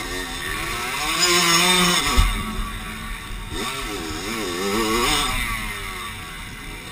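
Dirt bike engine revving up and down at low speed, its pitch rising and falling in repeated waves with the throttle.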